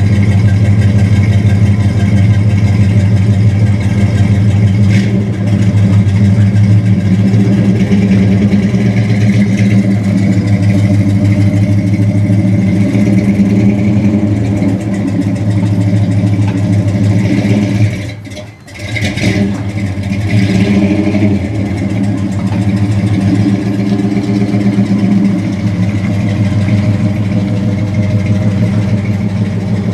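1963 Chevrolet one-ton truck's small-block V8 running steadily, with an even low engine note. The sound briefly drops out about two-thirds of the way through, then resumes.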